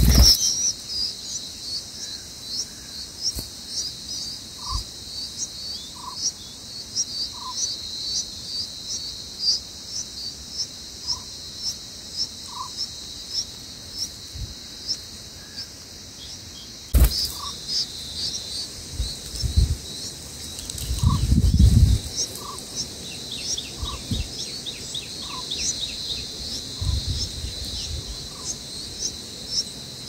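Short high chirps, several a second, over a steady high insect drone, with a softer lower call about every second or two. In the second half a denser run of high falling chirps, typical of bulbul nestlings begging while a parent is at the nest. Low rumbles come and go in the second half.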